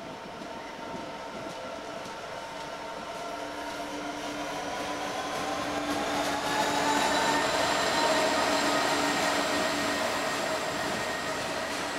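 British Rail Class 66 diesel locomotive passing close by, its two-stroke V12 diesel engine running with a steady hum that grows louder as it approaches. It is loudest about two-thirds of the way through, as the cab goes by.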